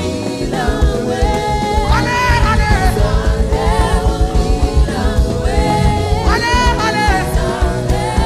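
Live gospel worship music: a band with a steady pulsing beat, and a voice singing long, wavering held phrases over it twice.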